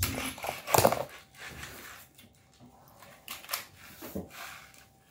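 A clear plastic takeout container handled over a ceramic bowl and table, with a sharp clatter about a second in, followed by a few lighter knocks and rustles.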